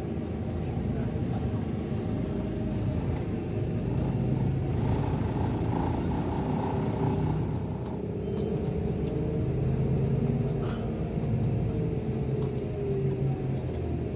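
Intercity bus cabin while on the move: a steady engine and road rumble heard from the front seat, with a faint whine that shifts in pitch partway through.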